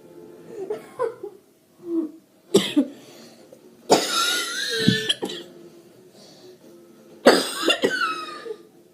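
A person's laugh-cough from an illness: three loud coughing fits, the second lasting about a second, with smaller vocal sounds before them.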